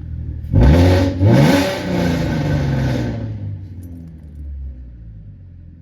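Car engine revving up twice in quick succession, then running on and fading away.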